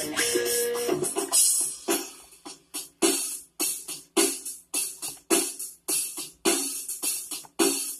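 Fingerstyle guitar music: a few ringing notes, then from about a second in a steady rhythm of sharp percussive hits, two to three a second, each dying away quickly.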